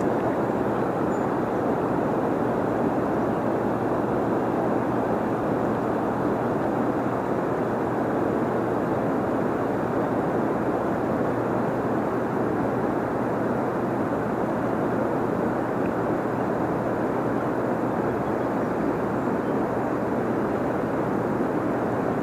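River water rushing steadily, an even unbroken rush.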